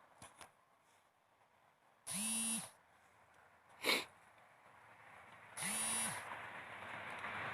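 Short electronic buzzing alerts, each about half a second long, repeating every three and a half seconds, from the phone running the drone's flight app, which is warning of trouble while the drone is being pushed around by strong wind. A sharp click comes between the buzzes, and wind rush builds near the end.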